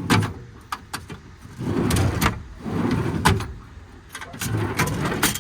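Metal tool drawers in a truck service-body compartment sliding open and shut on their runners. Each slide is a rolling rumble about a second long, ending in a sharp knock as the drawer stops.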